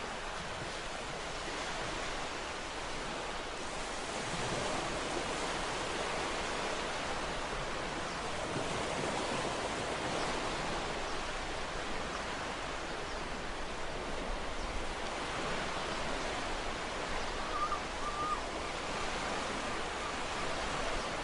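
Ocean surf washing onto a shore: a continuous hiss of waves that slowly swells and eases.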